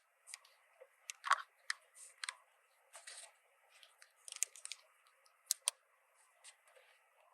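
Small plastic toy pieces and packaging being handled: irregular light clicks, taps and short rustles, the sharpest click a little over a second in.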